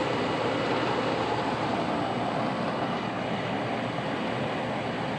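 Carrier rooftop air-conditioning unit running steadily, a continuous whooshing hum from its fan and machinery, with its punctured R-22 condenser coil patched and the system back in operation.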